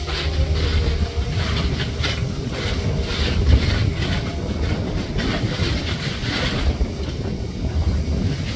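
Wind buffeting the microphone in irregular gusts over the low rumble of the passing naval minehunter ORP Kormoran.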